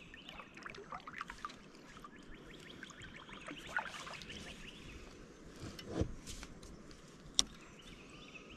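Faint dripping and trickling water around a plastic kayak, with a dull knock about six seconds in and a short sharp click a little later as the paddle is set down and the fishing rod picked up.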